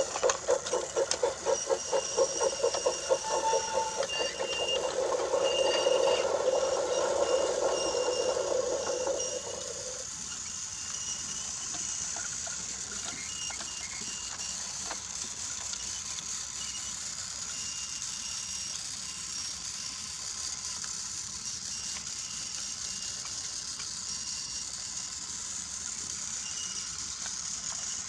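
Battery-powered Brio toy train's motor whirring as it runs along wooden track. A louder rhythmic pulsing sound with clicks fills the first ten seconds and stops abruptly, leaving the steady whirr.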